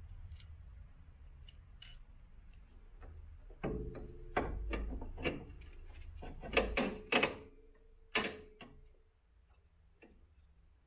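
Metal hand tools and suspension parts clinking and knocking: scattered clicks, then a denser run of sharp knocks with a brief ringing metallic tone between about four and eight and a half seconds in.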